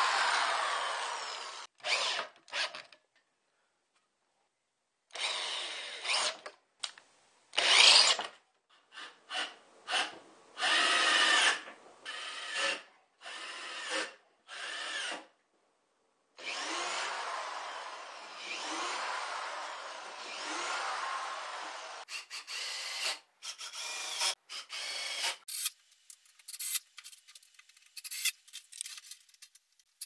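Cordless drill driving screws into a wooden frame and plywood panel, whirring in a string of short runs of a second or a few seconds each, separated by silent gaps.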